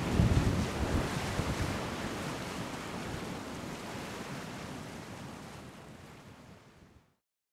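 Sea waves washing with wind, a steady rushing that fades out slowly and cuts off to silence about seven seconds in.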